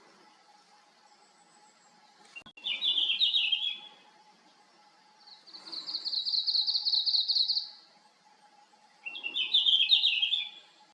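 Red-flanked bluetail song: two short, quick warbled phrases a few seconds apart, with a longer even high trill between them.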